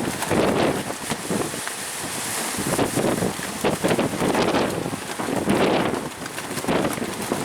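Strong coastal wind buffeting the microphone, rising and falling in irregular gusts.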